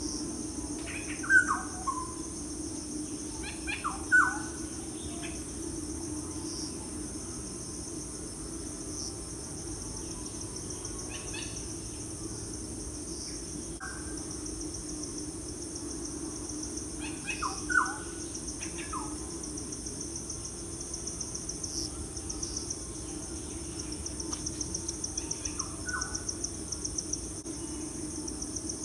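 Wild birds giving short, sharp, falling calls now and then, loudest about a second in, about four seconds in and about two-thirds of the way through, over a steady high trilling chorus of crickets or similar insects. A low steady hum runs underneath.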